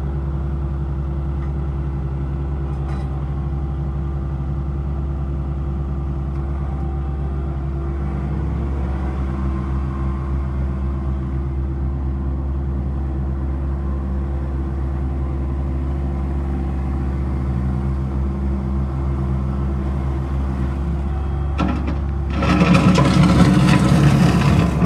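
Kubota L3560 tractor's diesel engine running steadily; its engine speed rises a little about a third of the way in. Near the end comes a loud, harsh burst lasting about two seconds over the engine.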